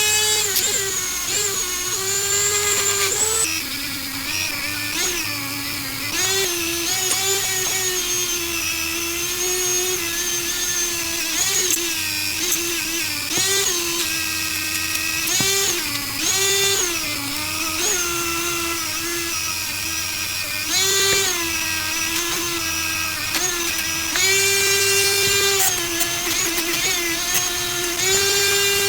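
A small high-speed power tool whining steadily, its pitch dipping again and again as it is pressed into the work and recovering as the load comes off. It cuts off abruptly at the end.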